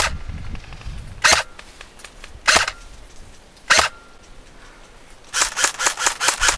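Airsoft Dragunov SVD marksman rifle firing single shots, four cracks about a second and a quarter apart. Near the end comes a rapid full-auto burst from an airsoft rifle, about seven shots a second.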